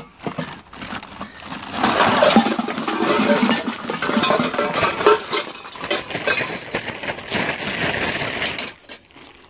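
Old brass oil lamp fonts and burners tipped out of a plastic sack, clattering and clinking onto paving slabs. The clatter starts about two seconds in and stops shortly before the end.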